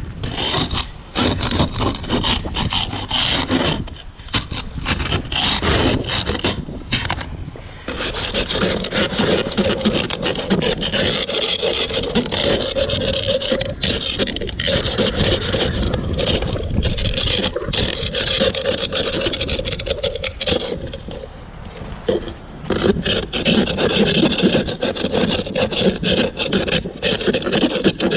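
An ice scraper scraping a glaze of freezing-rain ice off a car's side window glass in repeated quick strokes, with brief pauses a few seconds in and about two-thirds of the way through.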